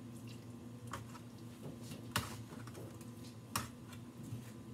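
Three sharp clicks about a second apart, with fainter ticks between them, over a low steady hum.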